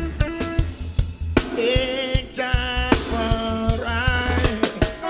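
Live reggae band playing, with steady bass and drum hits under a sung vocal line.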